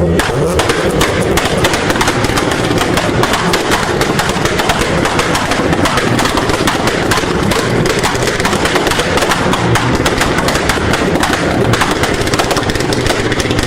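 Car exhaust firing a rapid, continuous string of pops and bangs, typical of an engine held on an ignition-cut launch limiter (two-step / antilag).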